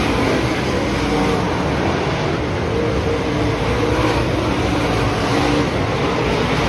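A pack of dirt track race cars running at speed, several engines together in a steady loud drone whose pitch rises and falls as they work around the oval.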